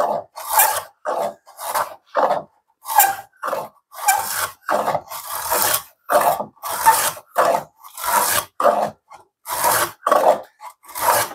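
A No. 78 rebate plane cutting a thick cross-grain rabbet in pine, in quick rhythmic strokes of about two a second. Each stroke squeaks: the plane's sole is dry, and a little wax would quiet it.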